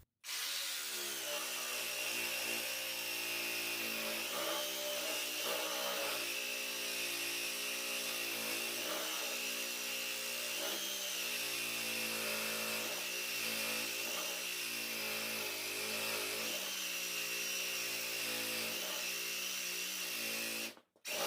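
Sawzall reciprocating saw with a ripping blade running steadily while cutting through a rubber mower tire and its foam rubber filling, its motor pitch sagging briefly now and then as the blade loads up. It starts and stops abruptly.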